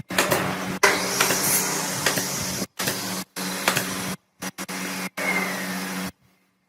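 Electric power tool motor running steadily with a constant hum, in short stretches that cut off abruptly several times, with a silent gap near the end.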